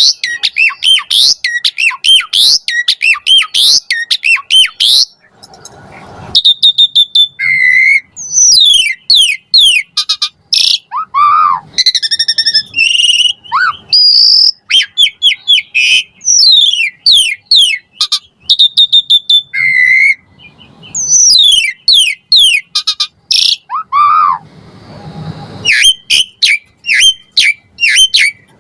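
Pied starling (jalak suren) singing a loud, fast, varied song of whistles and chirps in quick succession, with short breaks about five and twenty seconds in.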